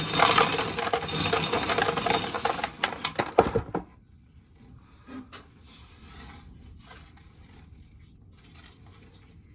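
Dry corn kernels being shelled off the cob by hand, rattling and clinking as they pour into a container, for about four seconds; then only faint rubbing and a few small clicks.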